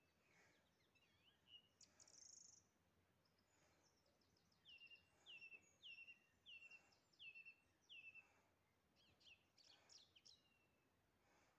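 Faint songbird singing: scattered chirps, then a run of six quick down-slurred notes, with a burst of rapid notes near the end.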